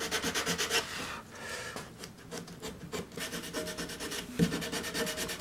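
Sandpaper rubbed by hand over carved wood, quick back-and-forth strokes at first, then slower, uneven strokes.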